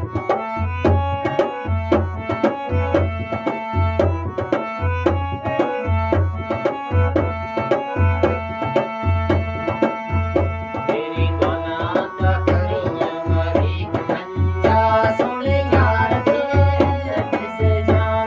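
Harmonium playing a Pahari folk melody over a steady dholak beat. A man's singing voice joins in about eleven seconds in.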